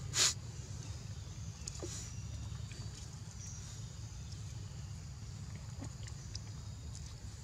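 Macaques biting and chewing pieces of cucumber: one sharp crunch just after the start and a few faint clicks, over a steady low rumble and a faint high insect hum.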